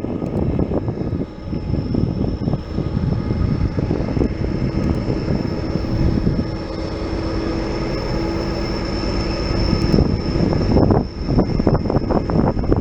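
Loaded freight train of ethanol tank cars rolling past: a steady heavy rumble of wheels on rail, with wind buffeting the microphone.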